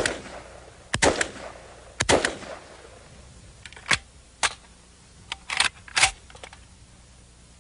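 Semi-automatic AK-47 look-alike rifle fired three times, one shot per trigger pull, the shots about a second apart, each with a short ring-out. A run of sharper, shorter metallic clacks follows as the rifle is handled.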